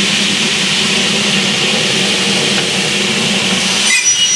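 Workshop machinery running with a loud, steady whirring hiss over a low hum. About four seconds in, the sound shifts and thin high whistling tones come in.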